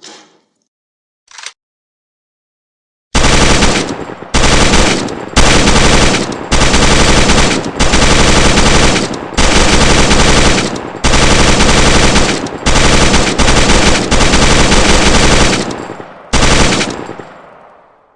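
PKM belt-fed machine gun in 7.62×54mmR firing full auto: about a dozen loud bursts of rapid shots with brief pauses between them, starting about three seconds in, the last one trailing off in echo. Two faint short clicks come before the shooting.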